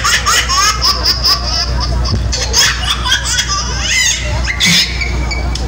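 Crowd's excited voices: high-pitched shouts, squeals and laughter, over a steady low hum.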